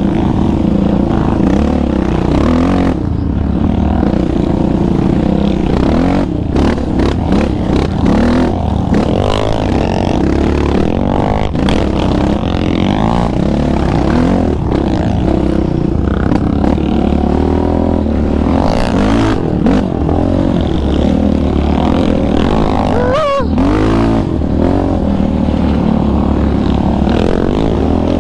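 Yamaha Raptor 700R ATV's single-cylinder engine running under throttle on a sand trail, its revs rising and falling as the rider works the throttle. A quick rev-up and drop comes late on.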